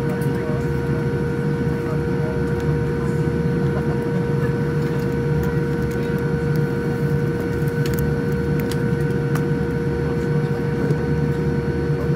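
Steady cabin noise inside a Boeing 787-10 airliner: a low rumble with a constant hum and a fainter, higher whine above it, and a few light clicks.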